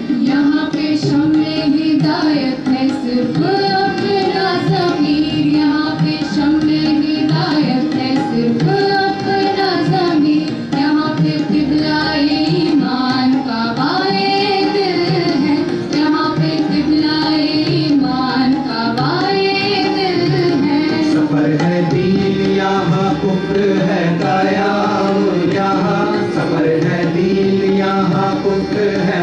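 A song sung in Urdu with tabla accompaniment, the voice carrying a slow melody over steady drumming and other instruments.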